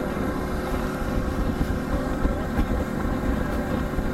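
Fishing boat's engine running steadily while under way, with wind and water noise over it.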